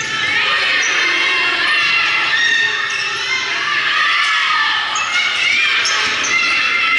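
Many voices shouting and cheering over a basketball game in a gym, with the ball bouncing on the court floor.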